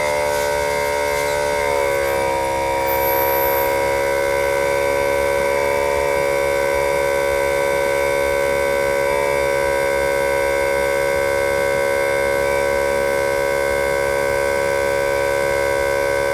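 A 12 V tyre inflator pump, wired to a car battery, running steadily while it inflates a car tyre, a constant pitched hum that dips slightly in pitch about two seconds in and then holds.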